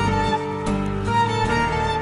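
Background music with slow, sustained pitched notes.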